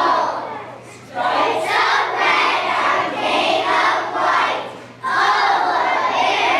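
A group of young children singing together loudly in phrases, with two short breaks between them.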